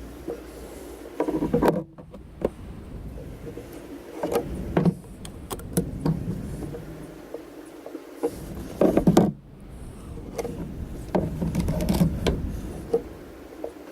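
Irregular knocks and clatter of tools and parts being handled during a car oil change, breaking off suddenly twice.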